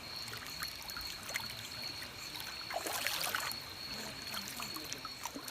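Trickling river water with a steady thin high-pitched tone running over it, and scattered small clicks and knocks. There is a brief swell of hiss about three seconds in.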